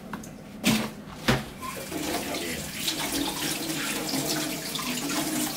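Two sharp knocks about half a second apart, then water running steadily from a tap into a sink.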